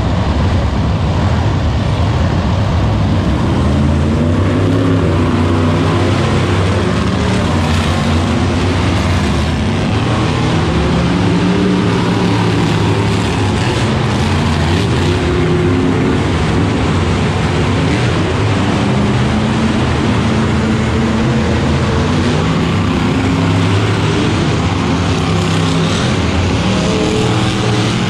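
Monster truck engines running and revving, the pitch rising and falling continuously.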